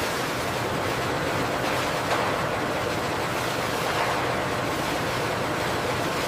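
Glass formers dipping into a bath of liquid latex on a production line: a steady rushing, surf-like noise of moving liquid over a faint machine hum.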